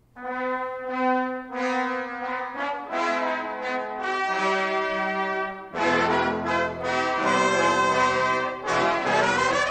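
Brass music of slow, long-held notes and chords, with a rising slide about nine seconds in.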